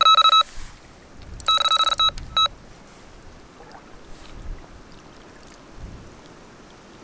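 Electronic carp-style bite alarm beeping rapidly as the line is drawn across it, then one longer continuous tone about a second and a half in and two more short beeps. It stops about two and a half seconds in.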